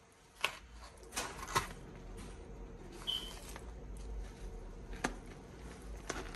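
Melanistic Asian water monitor thrashing a thawed rat in its jaws. A handful of sharp knocks and scuffs sound as the prey and the lizard's head strike the dirt floor, a few in the first two seconds and more near the end.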